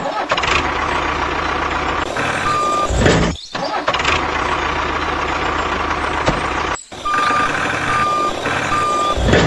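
Truck engine running with a reversing alarm beeping: once a little over two seconds in and three times, evenly spaced, near the end. The sound cuts out briefly twice.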